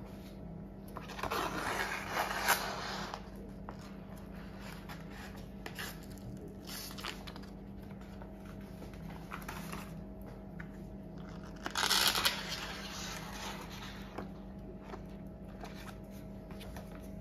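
Plastic cake collar strip crinkling and rustling as it is peeled away from the side of a set cake. The loudest spells come about a second in and again near twelve seconds in.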